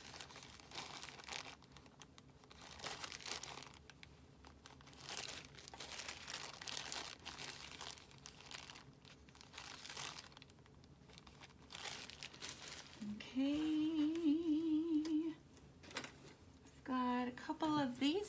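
Clear plastic bag packaging crinkling in the hands, in repeated bursts for about thirteen seconds as small figures are taken out. Then a woman hums a wavering note for about two seconds, and again briefly near the end.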